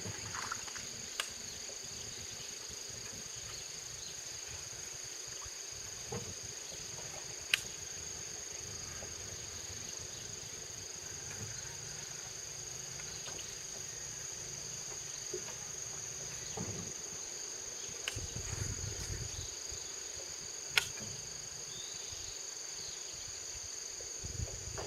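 Steady chirring of insects, a continuous high-pitched drone in two steady pitches. A few sharp clicks stand out over it, about a second in, around a third of the way through, and again later.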